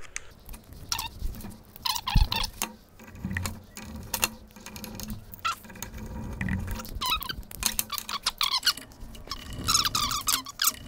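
Screwdriver driving small screws into an angle grinder's gear-head housing, with repeated short high squeaks and light clicks of metal parts and tools.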